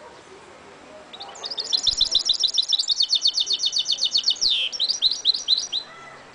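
Caged goldfinch–canary mule (hybrid finch) singing one phrase of fast, high trilled notes for about five seconds, starting about a second in, with a quick downward sweeping note past the middle and a few slower notes at the end.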